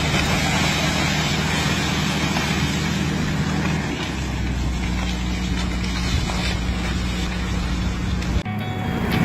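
A steady low engine hum under a loud, dense rushing noise. It changes abruptly about eight seconds in.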